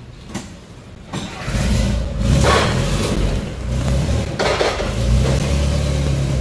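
An engine starts about a second in and keeps running with a loud, steady low rumble.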